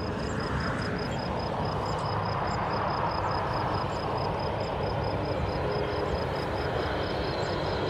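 Airbus A330neo's Rolls-Royce Trent 7000 jet engines running as the aircraft rolls, a steady rush of jet noise, with a faint high ticking about three times a second.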